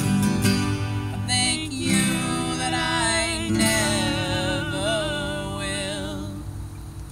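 Two acoustic guitars being strummed and picked together, with a voice singing along, the sound thinning out near the end.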